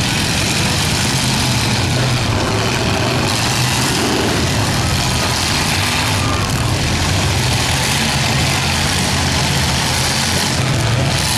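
Several demolition derby cars' engines running loud together as the cars push into one another in the dirt, a steady, unbroken engine din with no single crash standing out.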